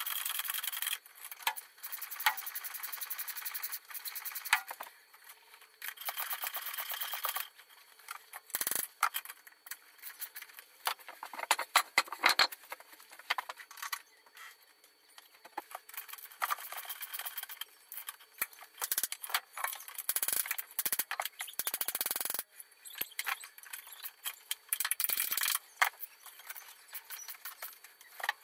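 Ratchet wrench clicking in quick runs of a second or two while turning engine-mount bolts, with occasional sharp metallic knocks of tools against the car.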